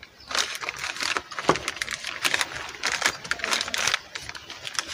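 Plastic spare-parts packets crinkling and rustling as they are handled, with scattered light clicks.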